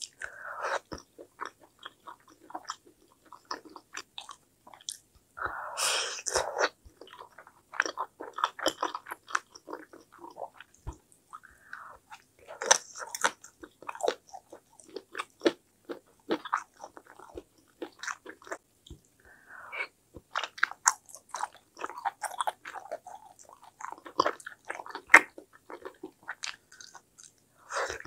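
Close-up mouth sounds of someone chewing spicy mala tteokbokki with fish cake and sliced meat: wet smacking and small clicks, with a few longer, noisier mouthfuls.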